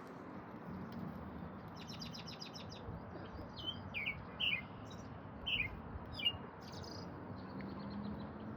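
Songbirds chirping: a quick run of short high notes about two seconds in, then several separate downward-sliding chirps over the next few seconds, over a steady low background hum.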